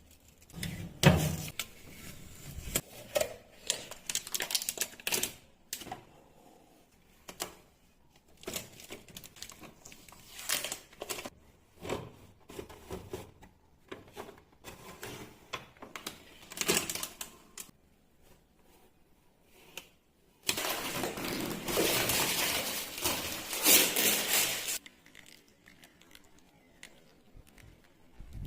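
Protective plastic being pulled off and handled on a new refrigerator: irregular crackling, clicks and light knocks, then a steady rasping stretch of about four seconds near the end.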